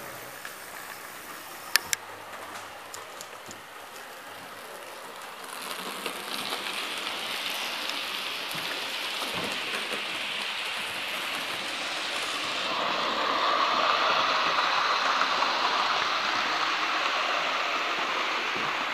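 Hornby OO gauge model steam locomotive and coaches running on the layout's track: a steady rushing whirr of the model's motor and its wheels on the rails, which grows louder about a third of the way in and again past halfway as the train comes close. Two sharp clicks come about two seconds in.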